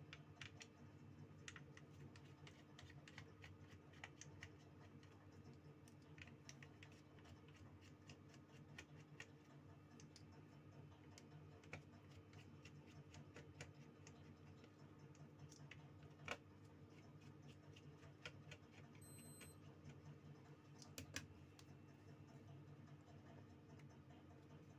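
Faint, scattered light clicks and taps of small hand tools working on an opened Nokia TA-1059 mobile phone, with one sharper click about two-thirds of the way in and a brief high beep a little later, over a steady low hum.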